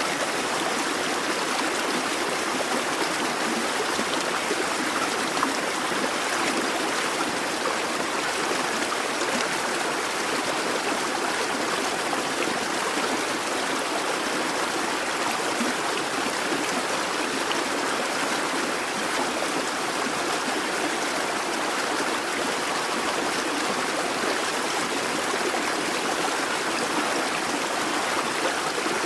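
A busy babbling brook: shallow water running steadily over stones, an even rushing and burbling without change.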